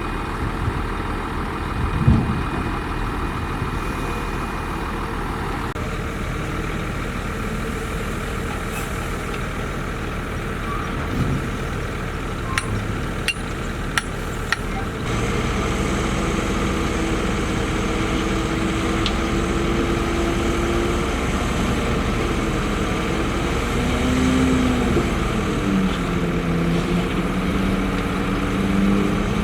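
Heavy diesel earthmoving machinery running: a bulldozer and dump trucks working. A few sharp metallic clanks come around the middle, and an engine note rises and falls near the end.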